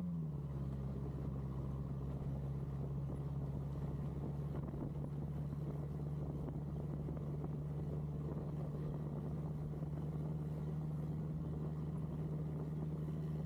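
A Chevrolet Tracker-based off-road buggy's engine runs at a steady cruise on a sandy dirt road, a constant low drone with road noise, its pitch dropping slightly right at the start.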